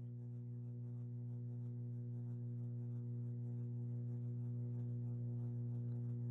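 Steady low hum made of several fixed tones, strongest at the bottom, holding unchanged and growing slightly louder.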